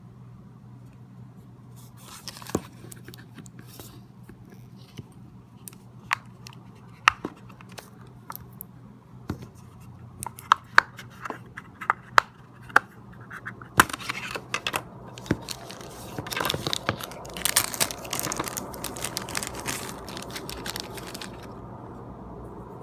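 Packaging of a new smartphone being handled and opened: scattered sharp clicks and taps, then several seconds of denser rustling and tearing near the end.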